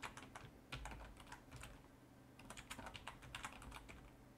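Typing on a computer keyboard: a run of faint, unevenly spaced keystroke clicks with a short lull midway.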